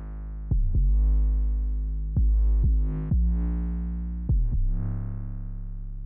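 Electronic background music with deep synth bass notes and keyboard, a fresh bass note struck every second or so.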